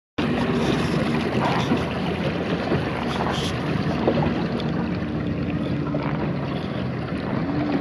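Steady wind blowing on the microphone over open sea water, with waves splashing. A faint low hum comes and goes underneath.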